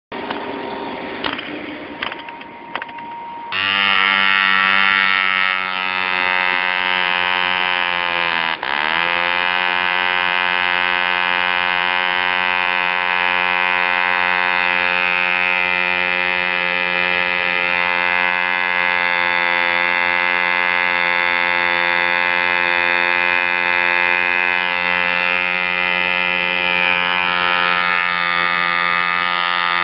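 Mills 0.75 vintage model diesel engine, a tiny two-stroke compression-ignition engine, running at high speed with a steady pitch after a few clicks at the start. It catches about three and a half seconds in. About eight seconds in it briefly drops in pitch and recovers, and right at the end it begins to slow.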